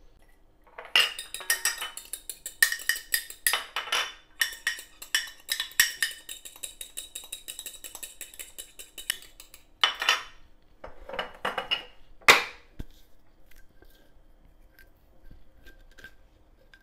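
Metal fork beating egg yolks in a small glass dish: rapid clinking of metal against glass for about eight seconds. A few louder knocks and clatters follow, one sharp clink the loudest, then only faint ticks.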